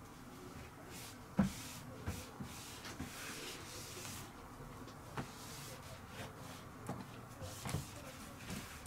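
Light knocks and rustling from hands cleaning and wiping a hooded plastic cat litter box, with a sharper knock about a second and a half in and several smaller ones after.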